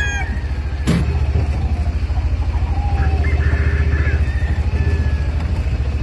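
A nearby engine idling with a steady, low, pulsing rumble. A single sharp knock comes about a second in, and faint short chicken calls come near the middle.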